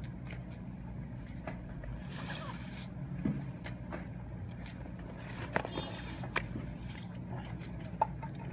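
Steady low engine hum running throughout, with scattered knocks and hissy rustles as cardboard boxes of supplies are handled and passed along; the sharpest knocks come about two-thirds of the way in and near the end.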